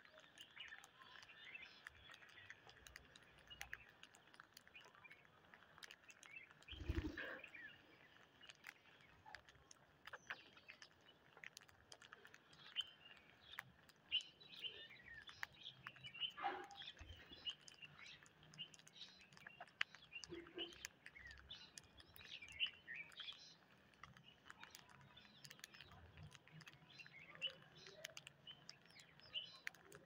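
Rose-ringed parakeets feeding on rice grains off concrete: many small clicks of beaks pecking and cracking grain, with scattered soft chirps. A dull thump about seven seconds in is the loudest sound.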